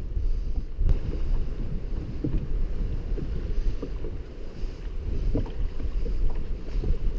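Wind buffeting the microphone as an uneven low rumble, with water moving around a kayak and small scattered knocks.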